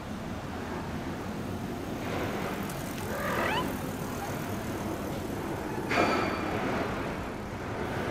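Steady construction-work and street noise in the background, with a brief rising cry about three seconds in and a louder, sharper sound about six seconds in.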